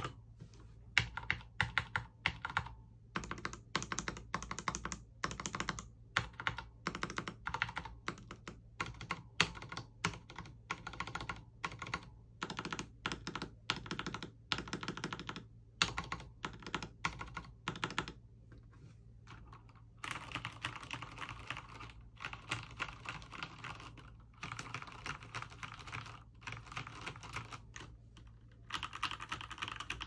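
Keychron K4V2 mechanical keyboard with Gateron Red linear switches, foam-modded and fitted with double-shot PBT keycaps, being typed on. Separate keystrokes for the first half, a short lull a little past the middle, then faster, denser runs of typing.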